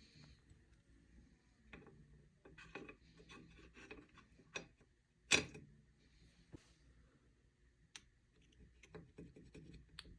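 A valve and spring being fitted into an RFE transmission valve body bore by hand: faint rubbing and light clicks of small metal parts, with one sharper click about five seconds in.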